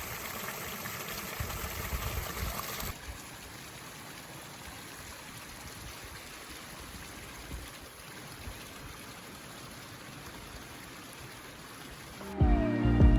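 Steady rushing outdoor noise, louder for the first three seconds and then softer. Background music starts near the end.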